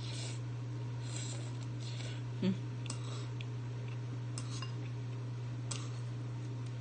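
Metal chopsticks clicking and scraping against a ceramic bowl as noodles are stirred and picked up, a few sharp clicks at uneven intervals, with a short slurp of noodles at the start and one soft thump about two and a half seconds in. A steady low hum lies underneath.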